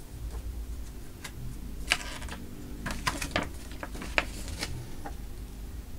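Paper instruction booklet being handled and opened, its pages rustling and crackling in a run of short crisp bursts, over a steady low hum.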